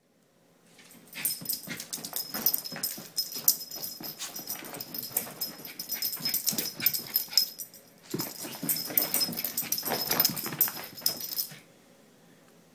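Small Bichon Frise–terrier mix dog excitedly chasing bubbles, a dense run of quick short sounds with a strong high hiss that dips briefly about eight seconds in and stops shortly before the end.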